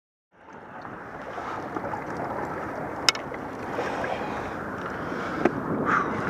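Wind buffeting the microphone over water splashing around a small fishing boat, a steady rushing that fades in just after the start. Two sharp clicks cut through it, about three seconds in and again about two and a half seconds later.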